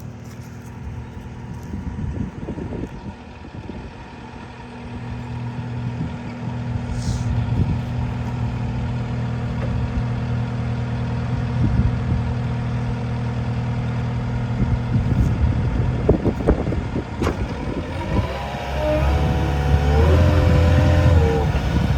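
Cat 246D3 skid steer's diesel engine running, stepping up to a steady higher speed about five seconds in, with scattered clanks. Near the end a whine joins in whose pitch wavers up and down as the machine is worked.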